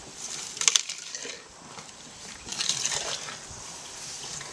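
Cut grass rustling and crackling under a sleeping baby elephant, in two short bursts about two seconds apart.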